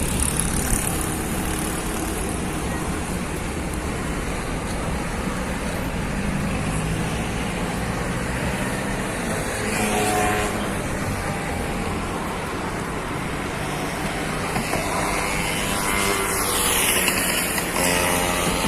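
Street traffic: a steady road noise with vehicles passing by, two of them sweeping down in pitch as they go past, about halfway through and near the end.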